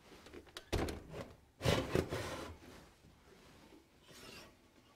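Wire oven rack pulled out along its metal runners: a knock, then a longer metal scrape, with a glass baking dish sliding on the rack in a fainter scrape near the end.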